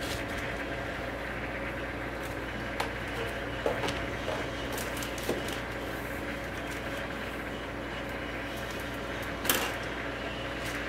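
Steady hum of a DeltaWrap 200 overwrapping machine running, with a few sharp clicks and crinkles as plastic DVD cases are wrapped in film. The loudest snap comes near the end.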